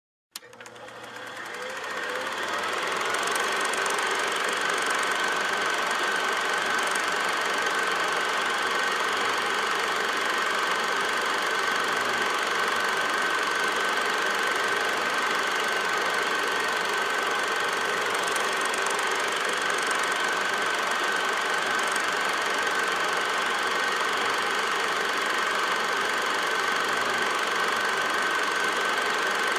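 8mm film projector running steadily, a mechanical rattle with a constant high whine, fading in over the first couple of seconds.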